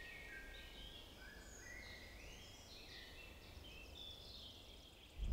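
Faint forest birdsong: several birds singing at once, short whistled notes and quick trills overlapping, over a low steady background rumble.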